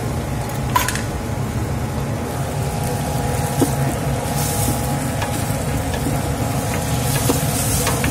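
Noodles being stirred and turned in a metal wok, with a few light clicks of the utensil against the pan, over a steady low hum.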